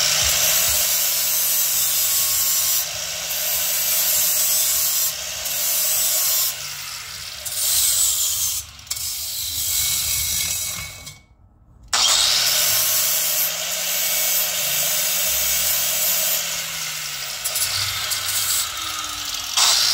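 Hand-held electric angle grinder with an abrasive disc running against the metal of a car's front end, a steady grinding rasp. It stops about eleven seconds in and starts again a second later, the motor winding back up to speed.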